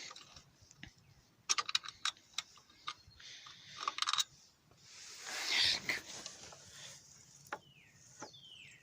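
Scattered light clicks and taps of parts being handled during an ATV teardown, in two quick clusters, with a short rustle about five seconds in and a few single clicks after.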